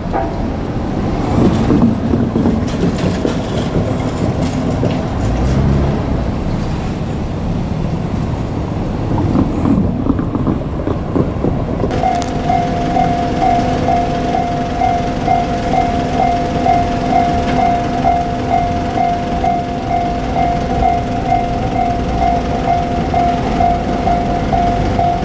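Rumbling noise of a passing train for about the first twelve seconds. Then a Japanese level-crossing alarm starts suddenly and rings steadily, a repeated electronic ding at about two strikes a second.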